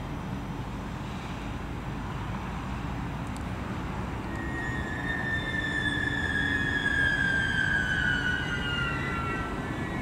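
Metronom double-deck push-pull train rolling in and slowing to a stop, its running noise growing as it nears. About four seconds in, a high whine sets in and slowly falls in pitch as the train slows.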